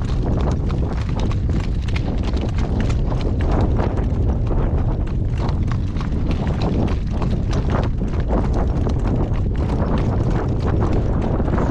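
Hooves of a shod horse clip-clopping steadily as it is ridden, many strikes a second, over a steady low rumble.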